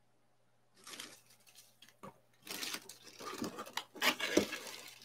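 Packaging and small parts being handled: irregular crinkling and rustling with a few short clicks. It starts about a second in and is loudest near the end.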